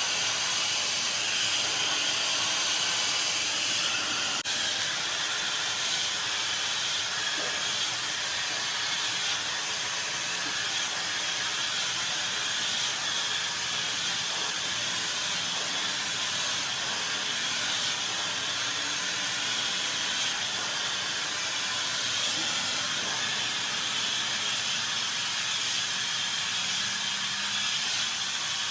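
Handheld hair dryer blowing steadily, a constant rushing hiss of fan and airflow as hair is being blow-dried.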